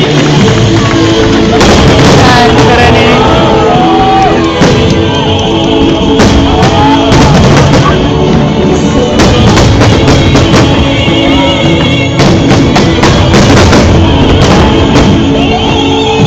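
Loud music with a singing voice and drums.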